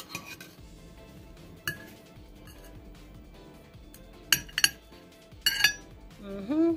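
Dishes and utensils clinking as food is plated: a few sharp, ringing clinks of a utensil against a plate, the loudest in two clusters in the second half.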